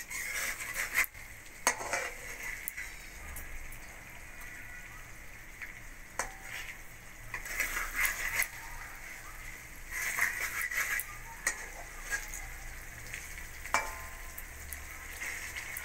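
A spatula stirring a spice paste into fish frying in oil in a metal kadai, with the oil sizzling steadily. The spatula scrapes and knocks against the pan now and then.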